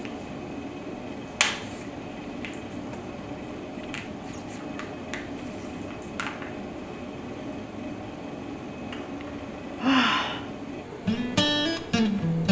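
Quiet room sound with a few sharp clicks and a short rushing burst about ten seconds in, then strummed acoustic guitar music starting near the end.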